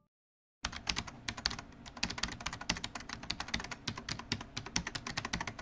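Computer keyboard typing sound effect: a fast, uneven run of key clicks that starts abruptly about half a second in.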